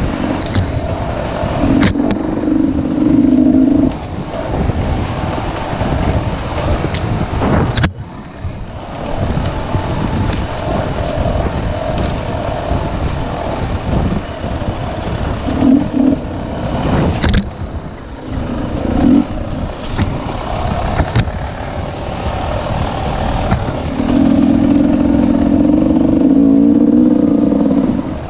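Off-road dirt bike engine heard from a camera mounted on the bike while riding a rough trail. The revs rise and fall with the throttle and are held high for a few seconds about a second in and again near the end. A few sharp knocks come in between as the bike jolts over the ground.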